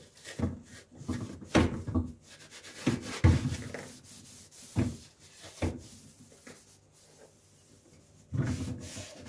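A sponge scrubbing the wet stainless steel tub of a dishwasher around the filter well, scouring off limescale and grime. The rubbing comes in irregular strokes, strongest in the first few seconds and again near the end.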